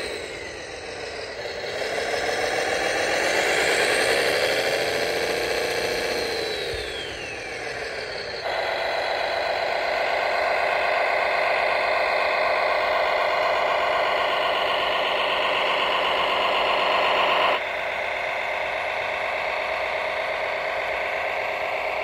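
Radio-controlled model tractors running. First, a tractor dug into sand rises and falls in pitch as its drive works against the sand. About eight seconds in, the sound changes abruptly to a steady run as a tractor pulls a roller across sand, and it drops a little in level later on.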